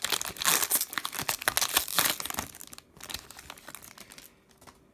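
Foil wrapper of a trading card pack being torn open and crinkled by hand. It is a dense crackle for the first two and a half seconds, then softer scattered crinkles that die away.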